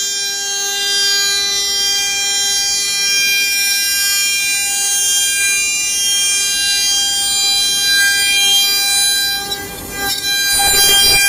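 Spindle of a Blue Elephant 2040 CNC router running with a steady high whine. A short dip and some rough noise come near the end.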